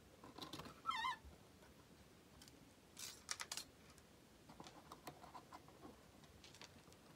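Faint handling of a cardboard box as its end flap is pried up and its tape seal pulled free. There is a short wavering squeak about a second in, a cluster of sharp tearing and scraping sounds around three seconds in as the flap comes loose, then light scratches and taps on the cardboard.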